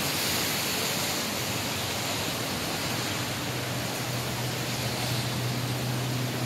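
Rushing of a flood-swollen river running high and fast after heavy rain, a steady roar of water. A low steady hum comes in about halfway through and grows.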